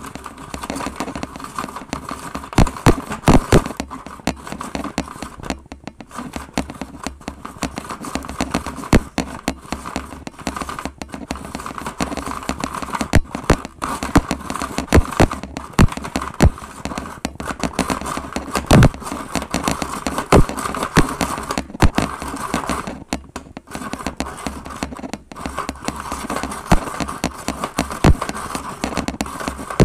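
Toy Snoopy snow cone maker, hand-cranked, shaving ice: a steady grinding rasp broken by many irregular sharp cracks and clicks as the ice cube is crushed.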